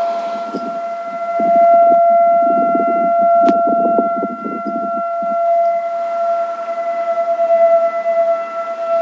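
Whelen 1,600-watt electronic siren with a rotating speaker array sounding a steady tone held at one pitch, its loudness slowly swelling and fading as the speakers turn.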